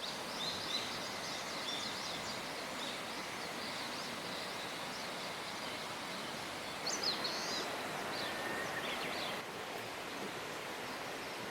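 Outdoor ambience: a steady background of noise with small birds chirping now and then, and a brief flurry of calls about seven seconds in.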